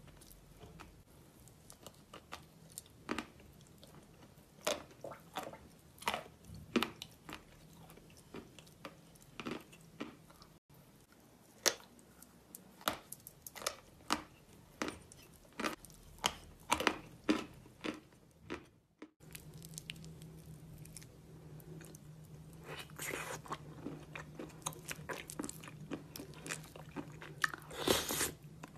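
Close-miked chewing of hard chalk with clay paste: irregular crisp crunches and bites, the loudest cluster near the end. A steady low hum comes in about two-thirds of the way through.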